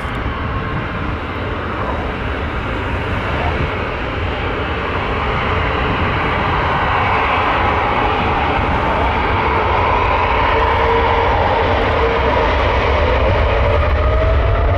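Twin jet engines of a Boeing 777-200ER, a loud steady rush that grows louder, with a faint whine that rises in pitch near the end.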